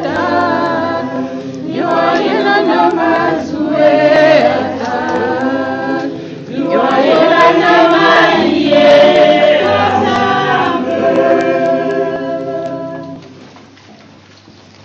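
A group of voices singing a hymn together, in phrases with short breaks between them. The singing fades out near the end.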